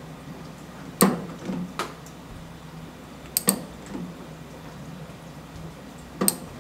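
A hex driver clicking and clinking on the steel socket-head bolts that hold the brew head of a La Marzocco Linea Mini espresso machine, as the loosened bolts are tightened. There is a sharp click about a second in, a quick pair around three and a half seconds in, and another near the end, over a low steady hum.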